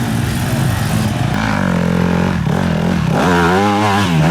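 Enduro motorcycle engine revving, its pitch climbing and wavering as the throttle is worked, with a stronger burst of revs in the second half.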